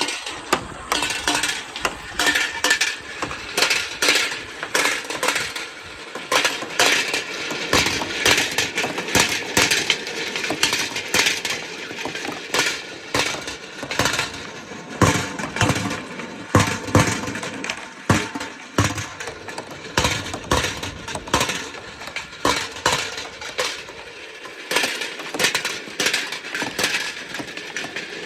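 Marbles rolling down a marble run, with a continuous rolling rattle and a rapid, uneven stream of clicks and clacks as they drop and strike the track and each other.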